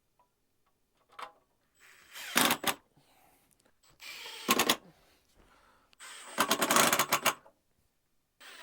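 Cordless cable stapler firing staples to clip cable, three times: each shot a short motor whirr followed by a rapid clatter.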